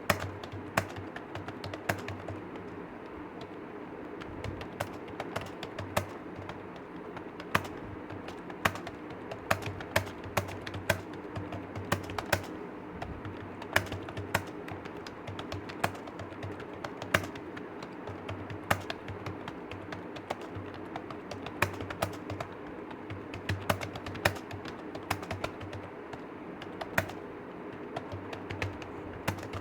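Computer keyboard typing: a continuous, irregular run of key clicks, with a few sharper strokes standing out each second, over a steady low hum.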